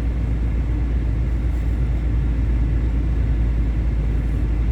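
Steady low rumble inside the cabin of a 2018 Nissan Kicks with the car running, with no sudden sounds.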